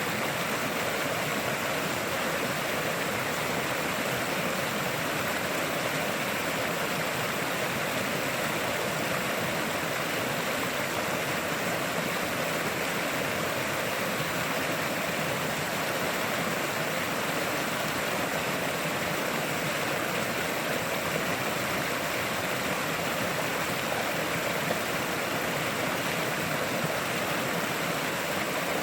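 A river flowing, a steady rushing of water with no breaks or changes.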